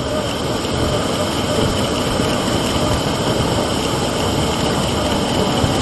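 Hand-held bamboo tube firework (tezutsu hanabi) spraying its fountain of sparks, a steady rushing hiss without breaks.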